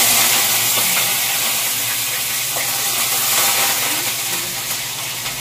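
Curry leaves and crushed garlic sizzling loudly in hot mustard oil in a kadai, the hiss easing slowly as the tempering settles.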